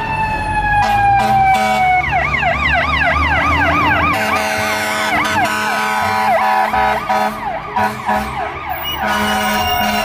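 Fire rescue truck's electronic siren: a slow falling wail that switches about two seconds in to a fast yelp of rapid up-and-down sweeps, then drops back to a slow wail near the end. The truck's engine rumbles underneath.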